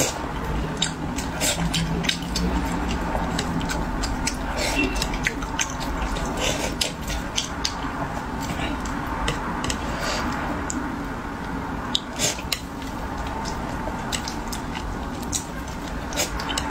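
Close-miked eating of braised fish: chewing and lip-smacking with frequent short, sharp clicks, over a steady low background hum.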